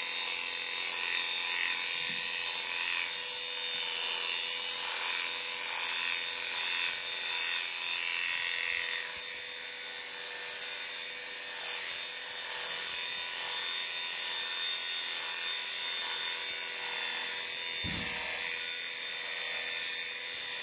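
Electric dog clippers with a comb attachment buzzing steadily as they cut through the dog's coat, with a wavering higher note over roughly the first half.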